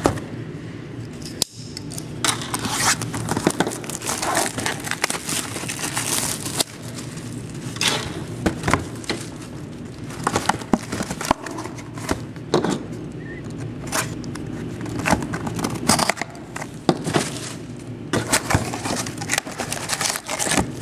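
Plastic and foil wrapping crinkling and tearing, with irregular crackles and rustles throughout, as a box of football trading cards and its packs are unwrapped by hand.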